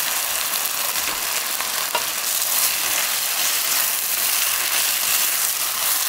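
Potatoes, pork and vegetables sizzling steadily in a nonstick wok while a spatula stir-fries them through thickening jjajang sauce, with the scrape of the spatula and a couple of light taps against the pan.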